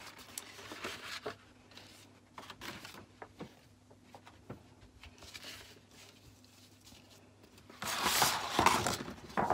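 Sheets of cut paper and card being handled and slid across a table, with small rustles and ticks, and a longer, louder rustle of paper near the end.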